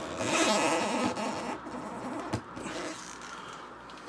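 Metal rod being forced through a tight hole drilled in a cork float body: cork scraping and squeaking against the rod, loudest in the first second or so, with a sharp knock a little over two seconds in.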